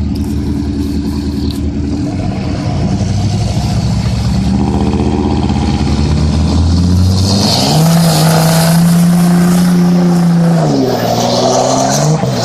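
Pickup truck engines revving hard under heavy load as two chained trucks pull against each other. The pitch climbs sharply about seven seconds in and holds high for about three seconds, then drops and rises again near the end.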